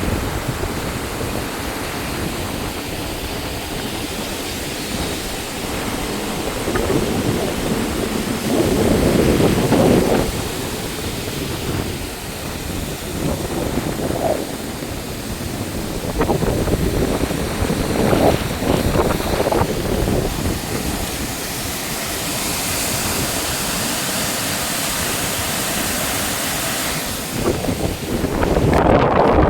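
Water rushing and falling at a dam, a steady noise that swells louder several times.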